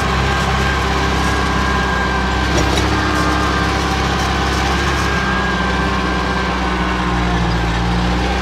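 Case 580 backhoe loader's diesel engine running steadily as the machine drives over sand, heard from inside the cab. A thin whine rides over it for the first half, and the engine note shifts a little about five seconds in.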